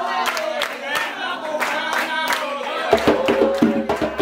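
A group of people singing a chant together a cappella with steady hand clapping. About three seconds in, drum-led percussion music starts.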